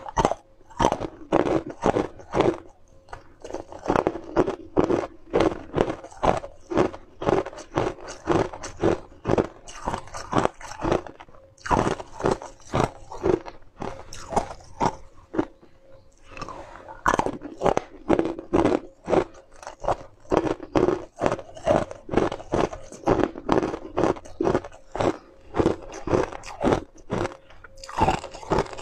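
Frozen ice cubes being bitten and chewed close to the microphone: rapid sharp crunches, about two to three a second, with a couple of brief pauses.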